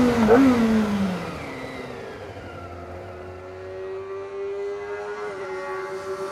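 Kawasaki Ninja ZX-25R's 250 cc inline-four engine given a quick throttle blip, the revs then falling away and settling into a quieter, steady engine note.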